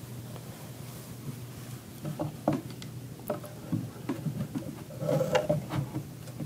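Light, scattered clicks and taps of statue parts being handled and fitted together, with a slightly louder stretch of handling noise a little past five seconds in.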